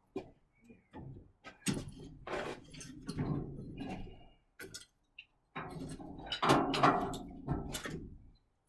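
Irregular knocks, clanks and scraping of hand tools working on the well pump's metal pipe fittings, loudest about six to eight seconds in.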